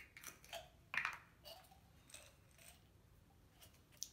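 Faint clicks and rattles of a small plastic vitamin E supplement bottle being handled: the cap twisted open and the capsules inside moved about, with one sharper click about a second in and another near the end.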